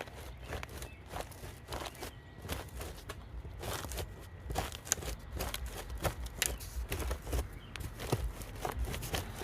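Irregular taps and crackling clicks from aluminum wrap cladding being worked over dry-rotted wood trim; the crumbling rot underneath is what the sound gives away.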